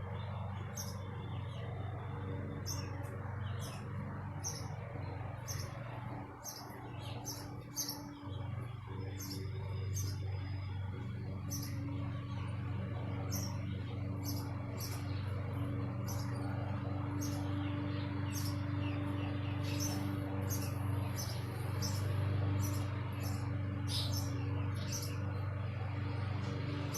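Small songbirds chirping over and over, short high notes all through, over a steady low hum.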